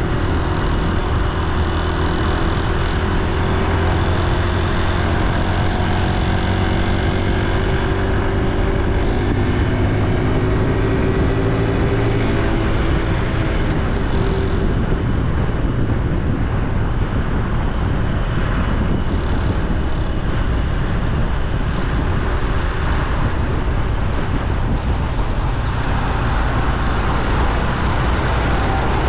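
Honda Super Cub C125's single-cylinder four-stroke engine and exhaust running under way, its note rising slightly over the first half. About halfway through, wind and road noise take over as the loudest sound.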